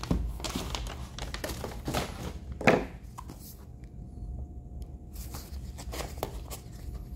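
Packaging being handled: paper and cardboard rustling and crinkling as a knife box is pulled from a mailer envelope and its lid opened, with a sharper knock about two and a half seconds in. The handling is quieter after that, with a few small taps.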